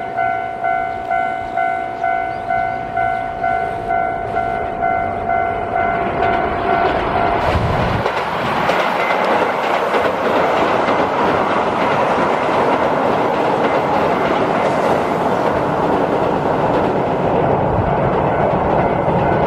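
A level crossing warning bell rings steadily, a little over twice a second. About seven seconds in, a Keihan electric train comes onto the steel railway bridge, and its loud rumble and wheel clatter over the bridge cover the bell for the rest of the time.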